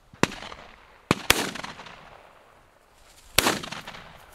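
Shotgun shots at birds: four sharp reports, one just after the start, two in quick succession about a second in, and one at about three and a half seconds, each trailing off in a short echo.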